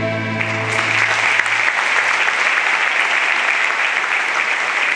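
Audience applauding, the clapping swelling in within the first second as the music's last held chord dies away.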